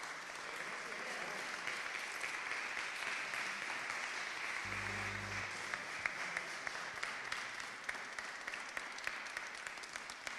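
Audience applauding, a steady patter of many hands clapping that begins to fade near the end.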